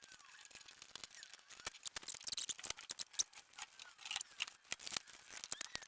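Rapid, irregular small clicks and ticks of hard parts being handled, densest in the middle, with faint short chirping squeaks.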